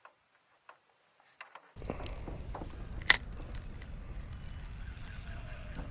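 Spinning fishing reel being cranked, its gears clicking and ticking, with one sharper click about three seconds in. It starts after a near-silent second and a half, over a steady low rush of outdoor noise.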